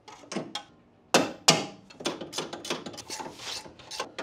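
Hand tools on metal car suspension parts: two sharp metallic knocks a little over a second in, then a string of quick, irregular clicks and taps.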